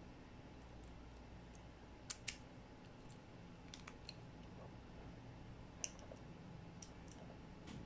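A handful of faint, sharp clicks from a small plastic cable connector being handled as a crimped wire end is fitted into it, the clearest around two seconds in and near six seconds, over a low steady hum.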